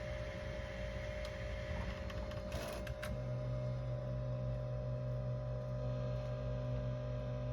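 3D printer running near the end of a print, its motors and fans making a steady mechanical noise. About two and a half seconds in there is a brief clatter, after which a steady low hum takes over.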